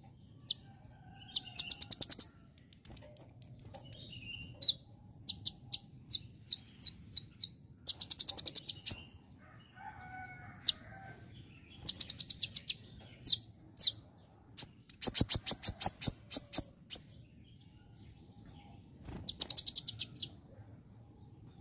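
Male black sunbird (kolibri ninja) singing: repeated bursts of rapid, high-pitched chips and trills, each up to about a second long, mimicking the call of the bar-winged prinia (ciblek).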